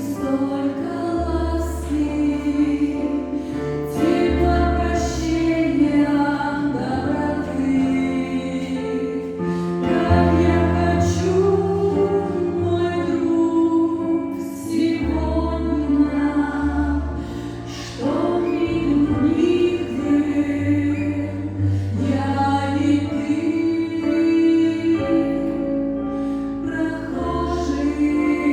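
A choir singing a slow Christian song over instrumental accompaniment, with held low bass notes that change every second or two.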